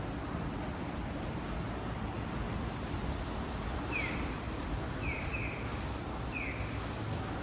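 Steady street background noise, with short high falling chirps starting about halfway through and repeating roughly once a second.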